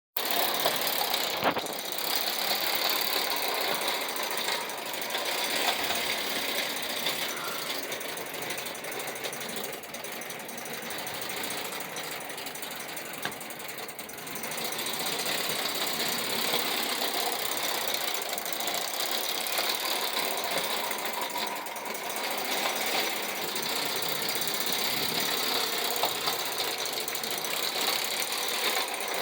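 Vintage Ives tinplate toy train running on its track with a steady, dense rattling clatter of wheels on the rail joints, somewhat quieter for a few seconds in the middle.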